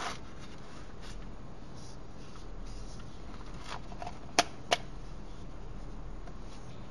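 Hands handling a small plastic folding camping lantern: light rustling and handling noise, with two sharp plastic clicks about four and a half seconds in.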